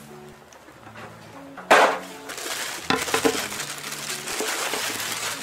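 Clear plastic wrap rustling and crinkling as it is pulled off a sous vide stick, with one loud rustle about two seconds in. Faint background music with slow bass notes underneath.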